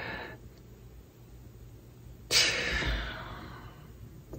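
A person breathing out audibly close to the microphone, a sigh-like breath that starts suddenly about two seconds in and fades over a second or so.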